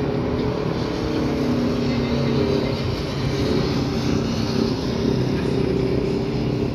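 Boeing 787-9's twin turbofan engines running at takeoff power during the takeoff roll, heard from a distance: a steady, continuous noise with a low hum of several steady tones under it.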